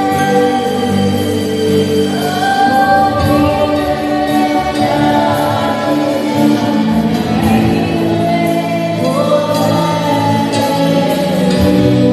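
Gospel worship music: a congregation singing with a band, steady and sustained.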